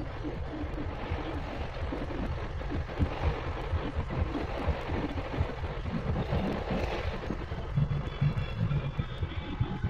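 Road and engine noise heard from inside a car cruising on a highway, a steady rumbling hiss with irregular low buffeting thumps on the microphone.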